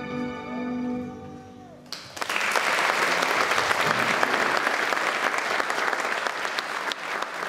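Ballet music ends on held notes. About two seconds in, an audience starts applauding and keeps clapping steadily.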